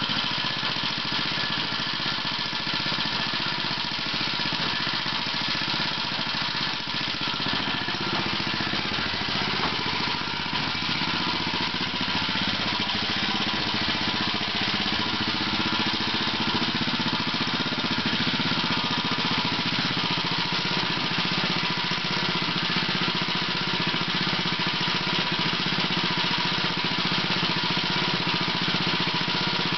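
Small gasoline engine fitted to a 1921 Cataract washer in place of its original motor, running steadily at an even speed.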